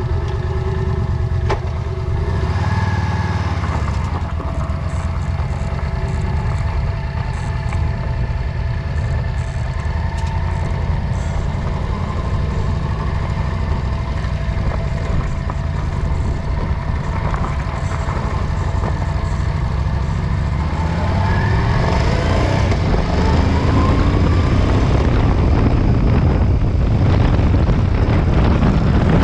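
A motor vehicle running with a steady low rumble. About two-thirds of the way in, a rising whine sets in and the rumble grows louder.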